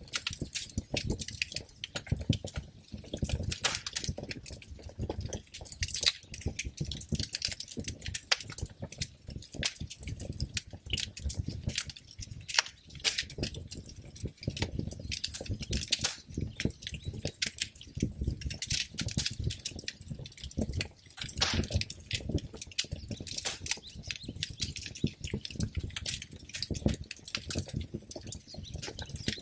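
Wood fire in a fireplace crackling, a dense run of irregular sharp crackles and pops over a low rumble of burning.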